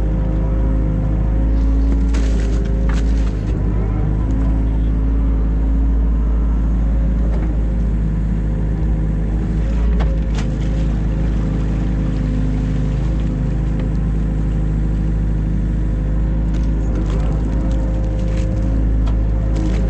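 New Holland Kobelco E 50.2 mini excavator's diesel engine running steadily under work, with a few sharp knocks and clanks, several of them near the end.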